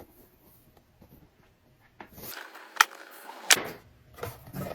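Cardboard packaging of a hair dryer being opened and handled: about two seconds of near silence, then rustling with two sharp clicks under a second apart.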